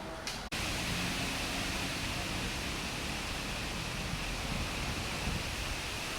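Heavy rain and strong wind in a storm, a steady rushing hiss. It cuts out for an instant about half a second in and then comes back louder.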